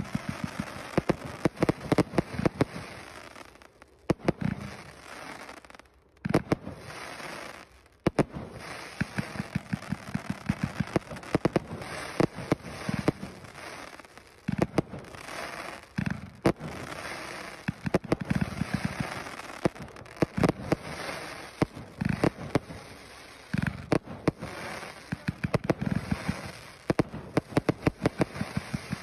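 A 188-shot firework cake firing in rapid runs: sharp launch pops and bursting shells, with crackling between the shots. There are a few brief lulls in the first eight seconds.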